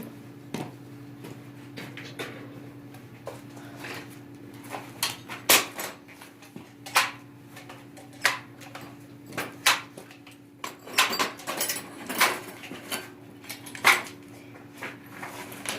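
Irregular sharp clicks and clanks of metal bicycle parts being handled during a chain repair, about a dozen spread unevenly, over a steady low hum.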